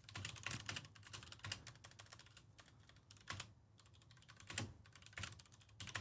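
Faint typing on a computer keyboard: a quick run of key clicks in the first second and a half, then scattered single clicks.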